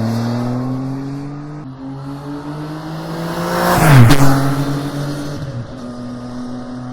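Triumph Tiger three-cylinder engine with its standard muffler, heard from a microphone mounted on the motorcycle, pulling steadily with its pitch slowly rising and a small step down near two seconds in. A brief louder rush of noise with a falling pitch peaks about four seconds in.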